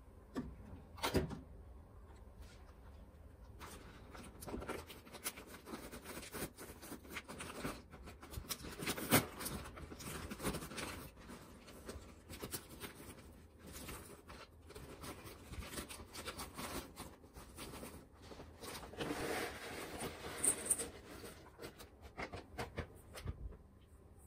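Paper microwave-popcorn bag crackling and rustling in the hands as it is handled and pulled open, with many small irregular crinkles and clicks. About three-quarters of the way through comes a longer, louder stretch of rustling as the popped popcorn is poured from the bag into a stainless steel bowl.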